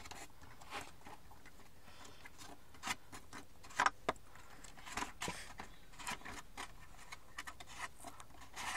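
Hands working a plastic part out of a molded paper-pulp packaging tray: scattered light clicks, scrapes and rustles, with a few sharper clicks about four seconds in.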